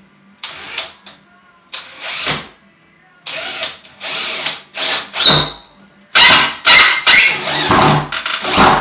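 Power drill driving a screw through concrete backer board in a series of short trigger bursts, each about half a second long, coming closer together near the end.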